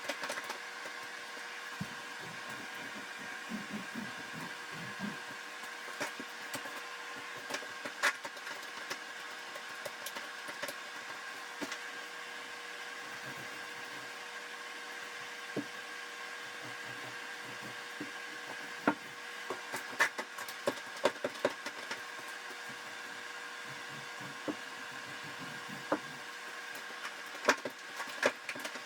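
A steady mechanical hum with a few held tones, with scattered light clicks and knocks from hand tools being handled; the clicks bunch together twice, about two-thirds of the way in and near the end.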